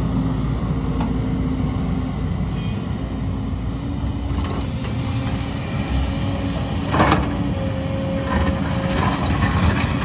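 JCB tracked excavator's diesel engine running steadily with a low hum, with a sharp clank about seven seconds in and a few lighter knocks after it as the bucket digs into the rocky slope.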